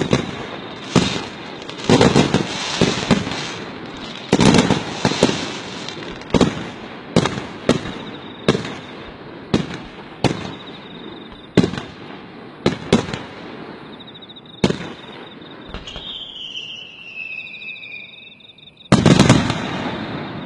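Aerial fireworks shells bursting overhead: a string of sharp booms, irregularly spaced about one or two a second, with crackling between them. About three-quarters of the way through the bursts pause and a falling whistle sounds, then the loudest bursts come close together near the end.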